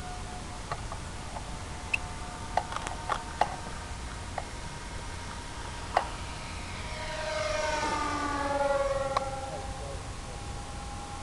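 Electric motors and propellers of RC model planes whining steadily in the air. About seven seconds in, one plane passes close, louder, its pitch dropping as it goes by. A few light clicks come before it.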